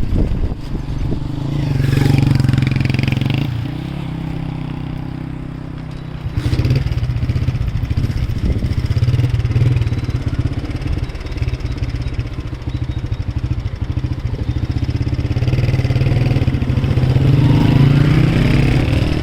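A motor vehicle's engine running steadily, its note shifting about two seconds in and again about six seconds in.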